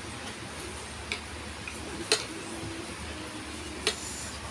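Three short sharp clicks of utensils, chopsticks and a spoon, tapping against a plate of noodles.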